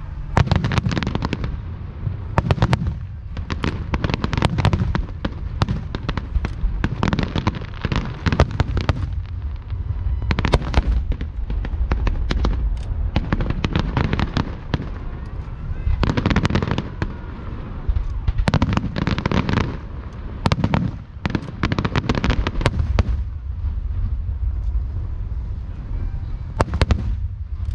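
Aerial fireworks display: volleys of shell bursts with sharp bangs and crackling over a deep rumble, coming in dense clusters with short lulls between them and thinning out near the end.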